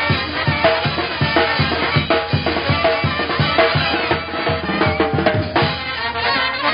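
A Mexican banda playing live: drums keep a steady beat under held brass notes.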